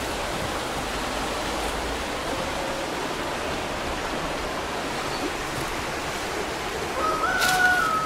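A steady, even rushing hiss, like wind or running water, with no clear events in it; near the end a thin, steady high whistle-like tone comes in.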